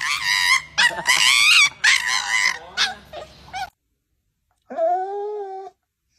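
Husky puppy crying out in a run of loud, high, wavering cries that stop about three and a half seconds in. After a second's pause comes one lower, drawn-out animal call.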